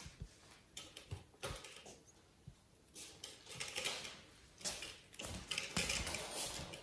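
Kitten biting and pawing at a felt gift bag tied to a wire playpen: scattered light knocks and rattles of the pen bars, turning to denser scratching and rustling about three seconds in.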